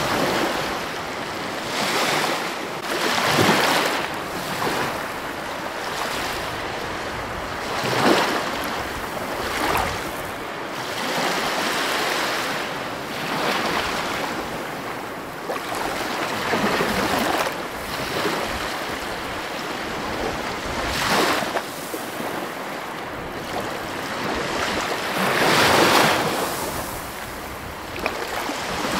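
Ocean surf breaking on a rocky shore, the wash swelling into a louder surge every few seconds.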